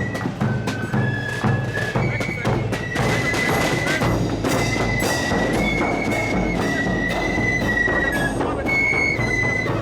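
Marching flute band playing a tune: a high, shrill melody of held notes over steady snare and bass drum beats.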